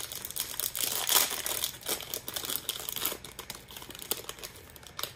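Thin plastic blind-bag wrapper being torn open and crinkled in the hands: an irregular crackling, loudest about a second in.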